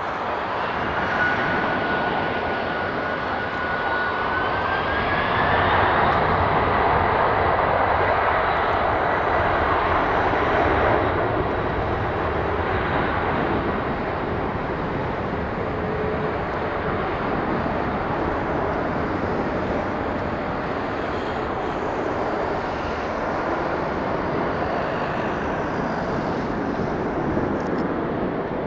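Airliner turbofan jet engines running with a steady rushing roar and a thin whine that rises in pitch a few seconds in. The noise is loudest for several seconds after that, then settles to a steady level.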